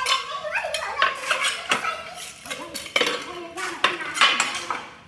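Hard objects clinking and clattering against each other in quick, irregular knocks, many of them with a brief ringing tone.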